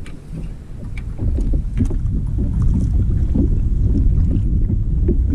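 Fishing kayak under way: a steady low rumble of wind on the microphone and water moving along the hull, growing louder about a second in. A few light knocks come in the first couple of seconds.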